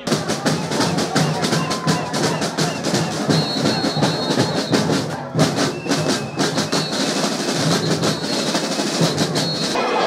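Drums playing a fast, dense rhythm of rapid strokes, with a few short high tones over it.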